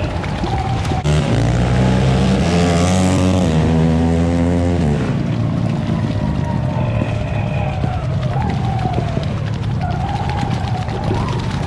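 ATV engine under throttle while it ploughs through deep muddy water: the revs climb for a few seconds, then ease off about five seconds in, over a steady sloshing of water. A wavering whine rides on top in the second half.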